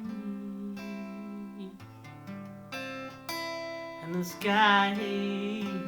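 Acoustic guitar played in loose, improvised strums, its chords ringing and changing every second or so. About four and a half seconds in, a voice briefly holds a wavering sung note, the loudest moment.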